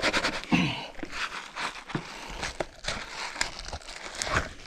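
Crinkling and rustling of material being handled, with many irregular small clicks and taps.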